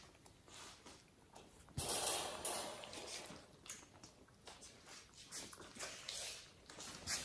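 Kittens rummaging with their heads in hanging felt gift bags: rustling and scrabbling, with a louder burst of rustling about two seconds in and scattered light taps.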